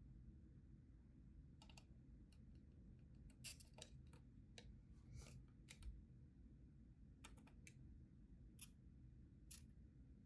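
Faint, irregular clicks and taps of small keyboard parts being handled and fitted together during assembly of a split keyboard, over a low steady room hum.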